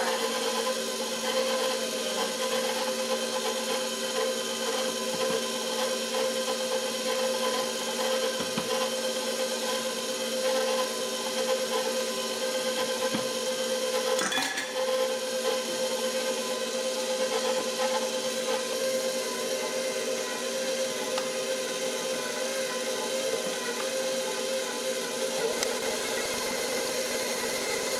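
KitchenAid electric stand mixer running at a steady speed, its motor giving an even whine.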